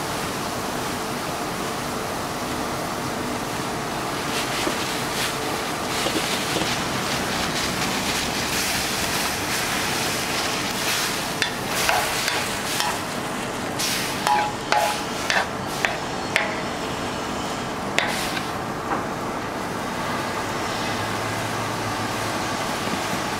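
Metal ladle scraping and clinking against a wok while stirring minced pork in simmering water, a string of sharp clinks about halfway through, over a steady hiss.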